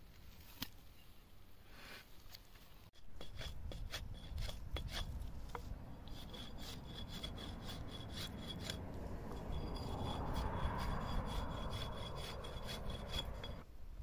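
A hatchet blade scraping and shaving along a thin wooden stick in many quick rasping strokes. The scraping starts suddenly about three seconds in, after a quieter stretch.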